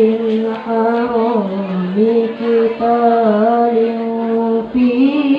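A child reciting the Qur'an in melodic tilawah style, holding long drawn-out notes with wavering, ornamented turns. The pitch steps up near the end.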